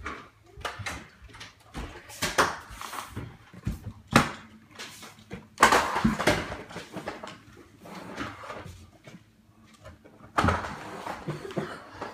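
Irregular thumps and scuffling of a child dropping down and crawling across a hardwood floor.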